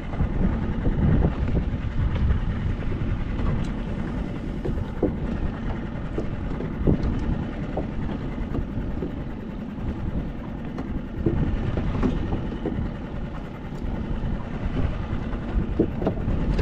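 Small 5 hp boat's outboard motor running steadily with the boat underway, its drone mixed with the rush of water and wind and a few light knocks.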